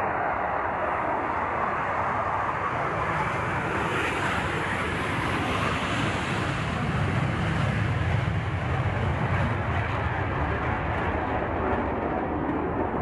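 Jet aircraft engine noise, a steady roar with a hiss that swells about a third of the way in and a deeper rumble building through the middle.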